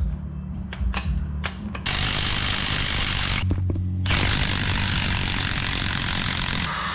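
A few tool clicks, then a power tool running in a continuous whir from about two seconds in, stopping briefly around three and a half seconds and starting again. It is spinning off the 5/8 in bolts that hold the steering box adapter plate on a first-gen Dodge Ram.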